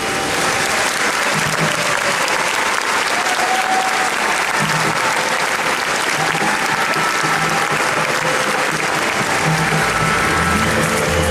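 Concert audience applauding after a piece ends, a dense steady clatter of clapping with a few held instrument notes faintly beneath it. Low notes from the band come in near the end as the next piece starts.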